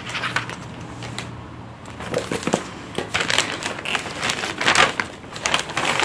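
Pages of a paperback manga volume being flipped, then thin plastic shopping bags crinkling and rustling from about two seconds in as hands rummage through them.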